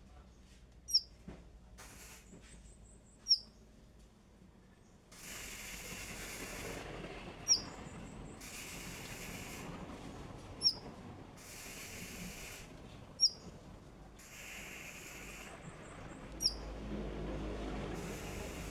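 A konin songbird giving six short, sharp, high calls, each a single quick note, spaced about two to three seconds apart. Between the calls come patches of hiss lasting about a second each.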